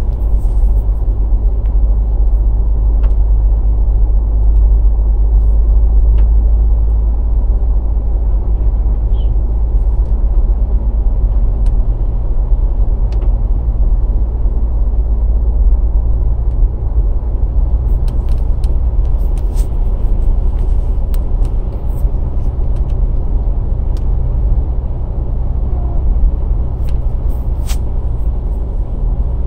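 Steady low rumble of a car's road and engine noise heard from inside the cabin while driving on a wet road, with a few faint ticks in the last third.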